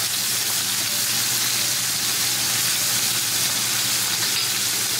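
Beef steak frying in hot olive oil in a frying pan: a steady sizzle, with cubes of butter added to the pan and melting into the oil.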